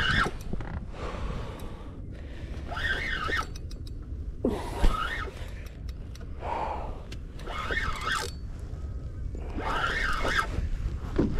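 A man's heavy, gasping breaths, recurring every second and a half to two seconds, as he strains to reel in a hooked fish, over low wind rumble on the microphone.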